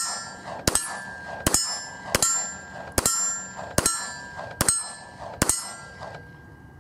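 A 9mm Glock pistol firing at steel targets: about eight evenly paced shots, a little under a second apart, each followed by the ring of the struck steel plate. The last shot comes about five and a half seconds in, and its ringing dies away.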